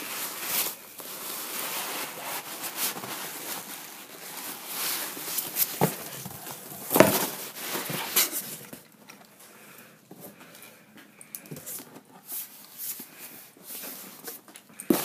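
Hands rummaging through foam packing peanuts in a cardboard shipping box: a crackly rustle with small clicks and one sharper knock about seven seconds in. Quieter handling with a few light clicks follows.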